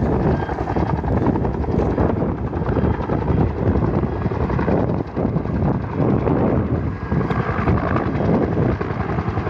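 Helicopter running close by, its rotor beating rapidly over a steady engine noise.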